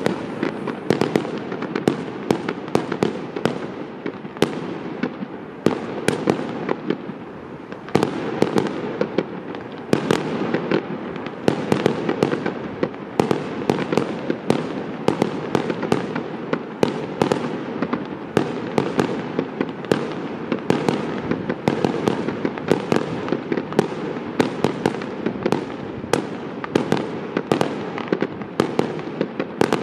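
Aerial firework shells bursting in quick succession, a sharp bang every second or so over a continuous rumble.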